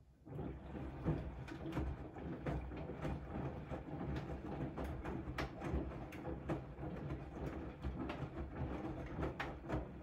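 Siemens iQ300 front-loading washing machine during a wash: the drum starts turning right at the beginning and tumbles the wet laundry, with a low rumble and water sloshing and splashing in irregular knocks.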